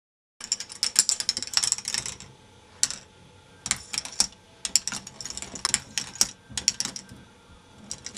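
K'nex ball machine running: plastic parts and balls clicking and rattling in quick clusters, with short pauses between bursts. It starts abruptly about half a second in.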